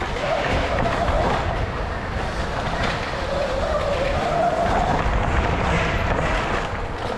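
Electric dirt bike motor whining, its pitch rising and falling with the throttle, over a rumbling rattle from riding over the track.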